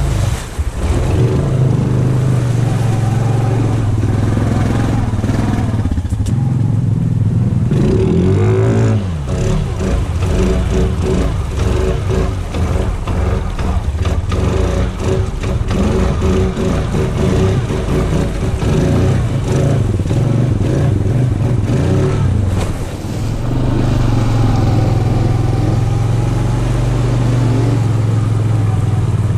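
Honda 520 ATV's single-cylinder engine running under throttle as it wades through a creek, with water splashing against the machine. The revs rise and fall about eight or nine seconds in, the middle stretch is full of splashing and clatter, and the engine runs steadily again near the end.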